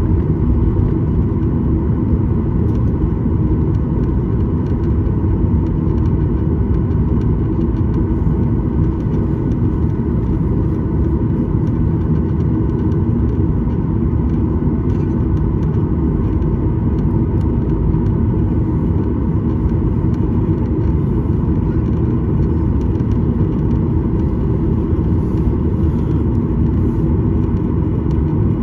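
Cabin noise of a Boeing 737-900 taxiing, heard from a seat behind the wing: its CFM56-7B engines run at low taxi power as a steady rumble with a constant hum.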